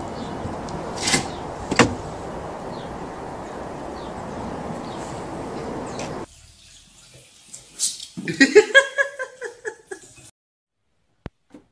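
Two sharp knocks less than a second apart over a steady outdoor hiss. Then, after a quiet stretch, a cat's drawn-out yowl that rises and falls in pitch for about a second and a half.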